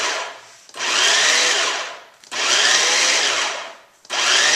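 Electric food processor pulsing: its motor spins up with a rising whine, runs about a second and stops, over and over, chopping onion and garlic for salsa. One pulse is ending as the sound begins, two full pulses follow, and another starts near the end.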